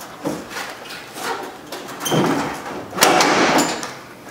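Plastic grille of a 2004 Chevy Colorado rubbing and scraping against the truck's front end as it is worked loose from its retaining clips. There are a few separate scrapes, the loudest starting about three seconds in.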